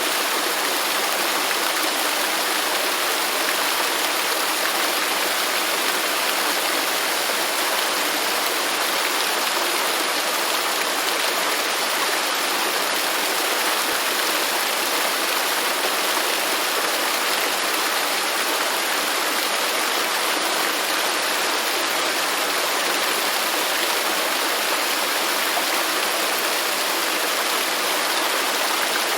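Waterfall: water falling and rushing without pause, a full hiss-like roar with little deep bass.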